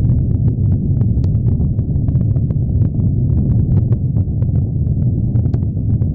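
Rocket engines at liftoff: a loud, steady, deep rumble shot through with rapid sharp crackling.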